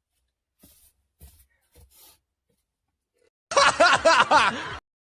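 A short burst of laughter, four or five quick voiced "ha" pulses lasting just over a second, starting about three and a half seconds in and cut off abruptly.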